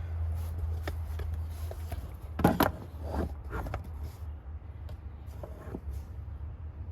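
Scattered clicks and knocks of parts and tools being handled at a truck's battery tray as the battery hold-down is fitted, the loudest about two and a half seconds in, over a steady low hum.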